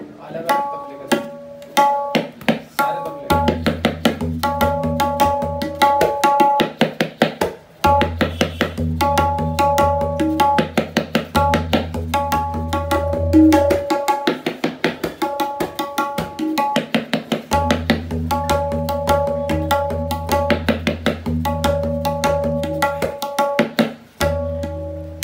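A tabla pair played in a fast, continuous rhythm. The dayan gives rapid ringing strokes at one clear pitch, and long stretches of deep bass strokes come from the metal bayan, which starts and stops in phrases.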